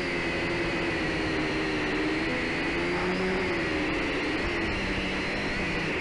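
Syma X5SC quadcopter's four motors and propellers whining steadily in flight, heard close up from its onboard camera, with several tones that drift slightly up and down in pitch as the motor speeds change.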